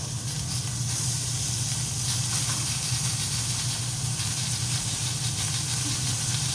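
Food frying in a pan: a steady hiss and sizzle of hot fat, with a steady low hum underneath.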